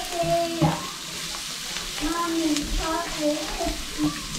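Onions and spices sizzling in oil in a ceramic-coated pan while a wooden spoon stirs and scrapes. A high, wavering voice sounds over it twice.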